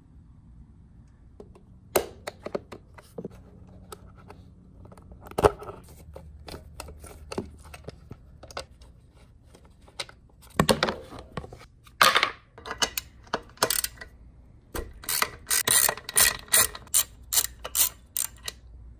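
Ratchet wrench clicking as bolts are fastened on a metal fender eliminator bracket, with scattered knocks and clinks of the bracket and hardware being handled. Near the end comes a quick run of clicks, about three or four a second.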